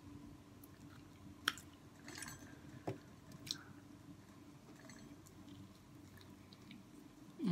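Close-up mouth sounds of someone biting into and chewing hot Cheeto-breaded seafood, with a few sharp crunchy clicks in the first half. A brief, louder low sound comes right at the end.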